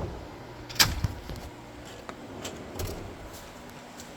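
Snap-on rolling toolbox drawer knocking shut with one loud metal bang about a second in, followed by a few lighter clicks and clinks.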